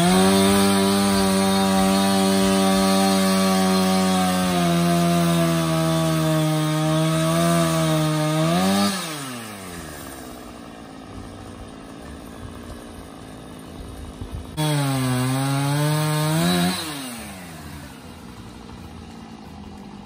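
Gas chainsaw revved to full throttle for about nine seconds, its pitch sagging slightly as it bogs in the cut, then dropping back to idle. A second short burst of full throttle follows a few seconds later. The saw is cutting a tree that is being felled.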